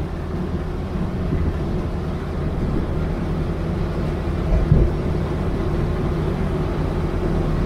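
Canal boat's inboard engine running steadily at low cruising speed, with a brief low thump about four and a half seconds in.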